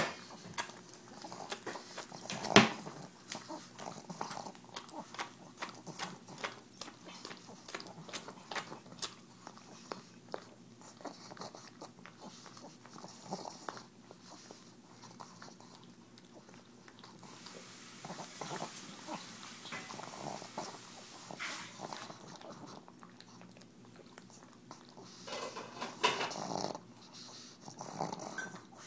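Pug licking and snuffling at a rubber KONG toy to work spray cheese out, making a run of irregular wet clicks and lip-smacks with snorting breaths through its flat nose. There is one loud knock about two and a half seconds in.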